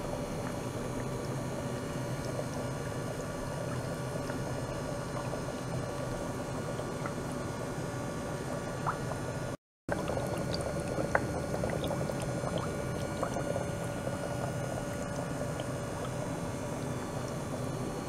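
Water churning and bubbling in a plastic tank stirred by an ultrasonic probe and a circulating hose, over a steady hum, with faint scattered clicks. The sound drops out completely for a moment a little past the middle.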